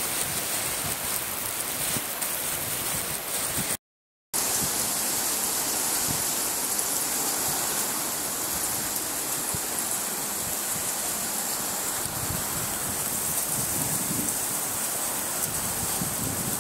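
Heavy rain falling steadily, an even hiss of downpour; the sound cuts out for about half a second about four seconds in.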